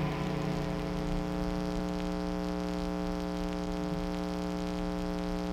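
Steady electric hum and hiss from electric guitar amplification left sounding after the music stops, a drone of several held tones that neither rises nor fades.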